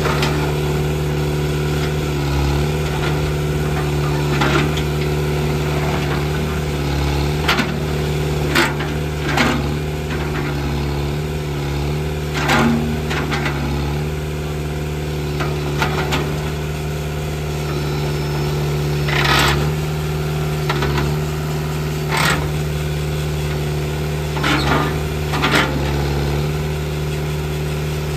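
Mitsubishi 2650 compact tractor's diesel engine running steadily while its front loader is worked, the pitch dipping slightly now and then under the hydraulic load. About a dozen short, sharp noises from the loader's hydraulics and linkage come as the bucket is raised and lowered.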